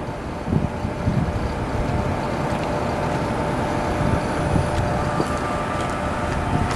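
Distant freight train with EMD SD70 diesel locomotives, heard as a low, steady rumble with a few faint steady tones running through it.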